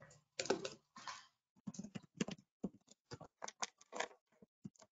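Faint, irregular clicks, several a second, after a brief faint snatch of voice near the start, heard through the video-call audio.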